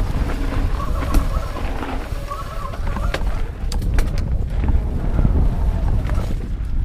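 Wind buffeting a helmet-mounted action camera on a fast mountain-bike descent, over the rush of tyres on a dirt trail, with sharp clicks and knocks from the bike rattling over rough ground.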